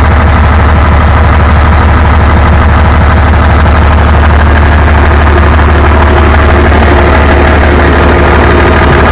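Caterpillar 3412 turbocharged V12 diesel engine on a generator set running steadily and loudly, heard close up.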